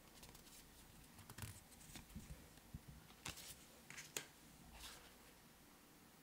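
Faint handling of tarot cards: a few short rustles and light ticks as one card slides off the front of the deck and is tucked behind the others, loudest a little past three and four seconds in.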